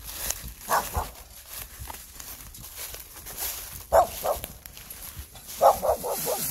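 A dog barking in short bursts: two barks about a second in, two more around four seconds, then a quick run of four or five near the end.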